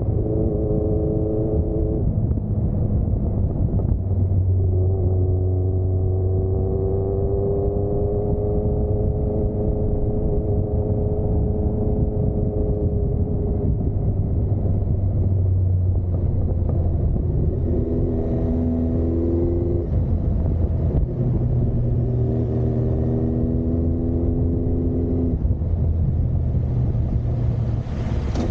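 Honda CB1300's inline-four engine and exhaust running as the motorcycle rides in traffic, its note rising and falling several times as it speeds up and eases off, over a steady low rumble. Picked up by an Insta360 X2 camera's microphone on the bike, it sounds dull and muffled, which the rider puts down to the camera muffling the sound above about 60 km/h.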